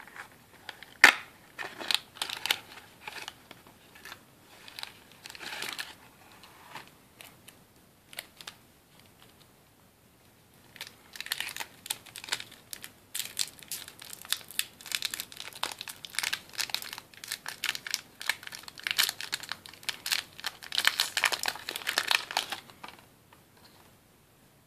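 A cardboard snack box being opened, with a sharp snap about a second in and scattered rustling and clicks. About eleven seconds in, a foil-lined plastic cookie wrapper is crinkled and torn open, a dense crackling that lasts about twelve seconds.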